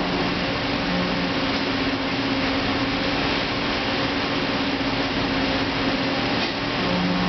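Bullard CNC vertical turret lathe running with its table turning in high gear: a steady mechanical whir of the drive and gearing with a constant hum, and a lower hum that drops in briefly about a second in and again near the end.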